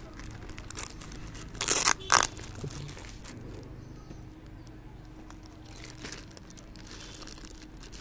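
Plastic courier mailer crinkling and its packing tape tearing as it is pulled open by hand, with two loud rips about two seconds in, then quieter rustling.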